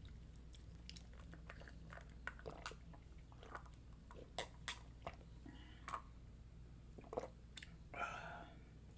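Close-miked mouth sounds of eating: soft chewing with scattered small clicks and a slightly fuller mouth noise near the end.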